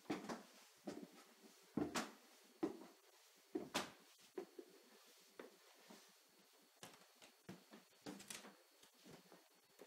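Footsteps on wooden stairs and then across wooden floorboards: a run of knocks about a second apart, louder in the first four seconds and fainter after.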